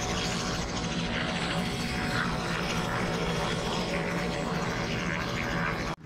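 Aircraft engine running steadily at a heliport: an even, continuous drone.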